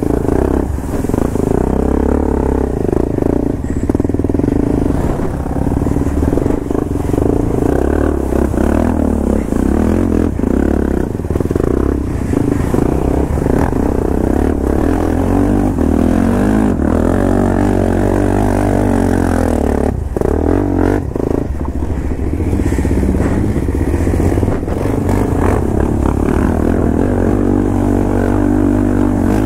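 Motorcycle engine running while riding, its pitch shifting a little with speed, with a few brief knocks and rattles about two-thirds of the way through.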